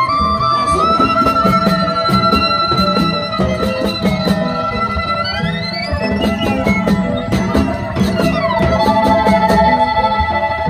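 A live Latin dance band playing: a lead instrument holds long notes that slide up and down, over a repeating bass line and steady percussion.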